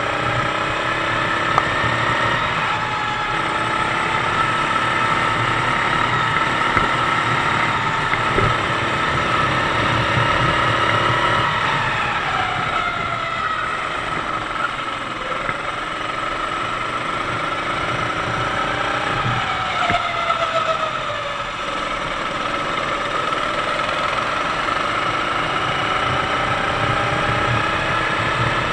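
Sodi kart's 390cc four-stroke single-cylinder engine running at race pace, heard from on board the kart. Its pitch falls twice as the kart slows for corners, then climbs again as it accelerates out.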